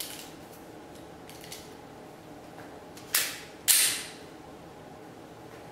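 Two shots from a Glock 20 pistol in 10mm Auto, fired about half a second apart, each with a short echoing tail, after a couple of light handling clicks.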